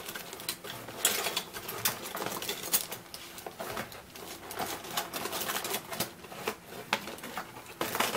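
Clear plastic parts bag crinkling and rustling as a hand digs through it, with hard plastic model-kit parts on their sprues clicking against each other in irregular bursts.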